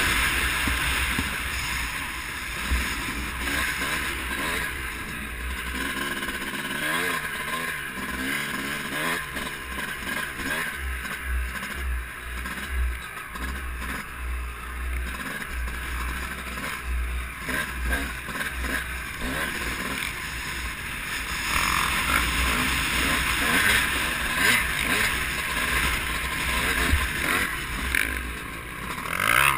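2005 Honda CR250R's two-stroke single-cylinder engine revving up and down through the gears, heard close up with heavy wind buffeting on the microphone. It is quieter through the middle and picks up again in the last third.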